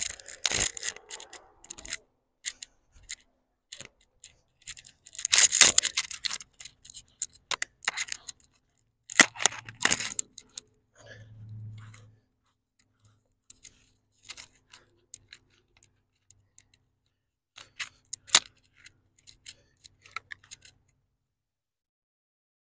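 Gloved hands patting and scraping loose, dry soil: irregular bursts of crackling scratches and crunches, with a short low hum about halfway through.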